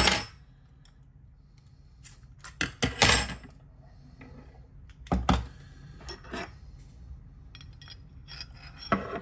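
Steel hex keys clinking against each other and against a metal hex key holder as they are handled and pushed into its holes: scattered sharp metallic clinks, the loudest few about three and five seconds in, then lighter clicks.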